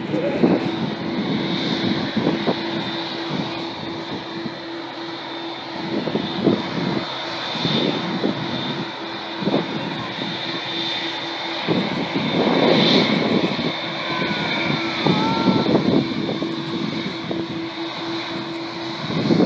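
Airliner engines running: a steady hum with a thin high whine above it, rising and falling in loudness.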